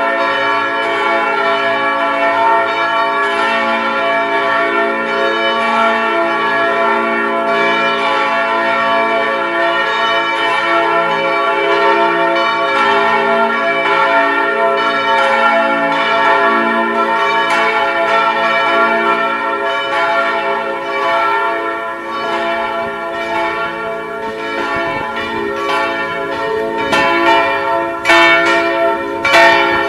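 Several church bells ringing together in a continuous, overlapping peal. Near the end, the individual strokes come through louder and sharper.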